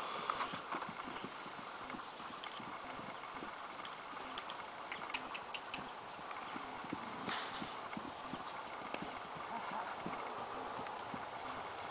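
Hooves of a mare and her colt foal trotting on grass: soft, irregular thuds with a few sharper clicks.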